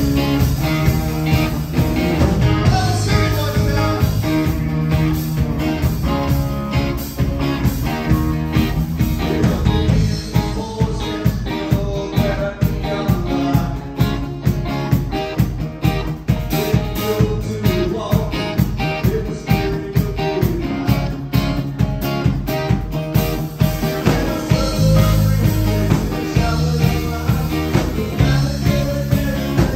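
Live rock band playing, with drum kit, electric guitar and acoustic guitar over a steady drum beat.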